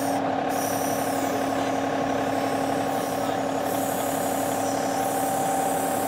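John Deere 2038R compact tractor's three-cylinder diesel engine running steadily at raised throttle while working the backhoe.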